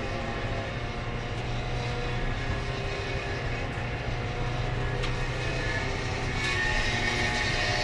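Race car engine running steadily, heard from inside the cockpit with its mechanical noise. It grows louder and brighter about six and a half seconds in.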